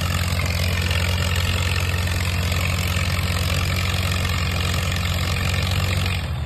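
1936 Allis-Chalmers tractor's four-cylinder engine running steadily under load as it drags a weight-transfer sled, turning quieter and duller about six seconds in.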